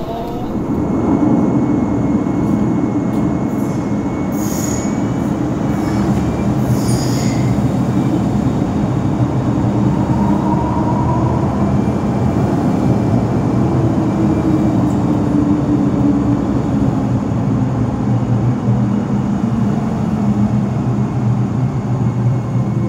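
MTR M-train (Metro Cammell electric multiple unit) running past close by in a tunnel: a loud, steady rumble of wheels on track. Brief high wheel squeals come about four and a half and seven seconds in.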